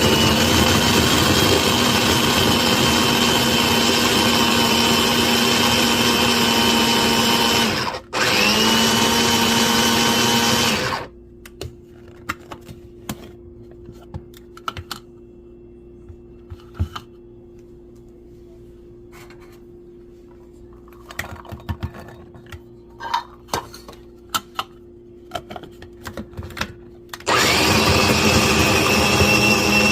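Electric food chopper motor running with a steady high whine, chopping garlic. It cuts out for a moment and restarts, then stops. During the pause there are a low steady hum and scattered light clicks and taps, and the motor starts up again near the end.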